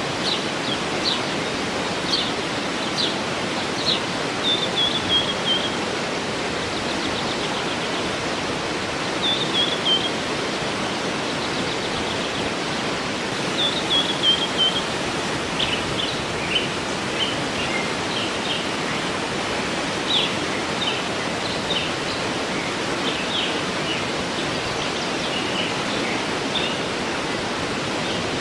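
Steady rushing of a waterfall with birds singing over it: many short, high chirps, and a few brief falling trills about four, nine and fourteen seconds in.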